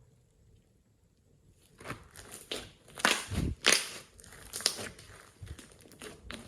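Slime being squished by hand, giving a run of irregular crackling pops and squelches. It starts after a quiet second and a half and is loudest a few seconds in.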